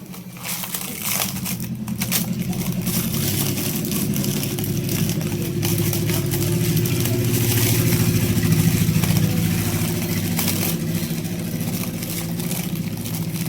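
A small petrol engine running steadily with a fast, even pulse. It grows gradually louder over the first two-thirds, then eases off a little.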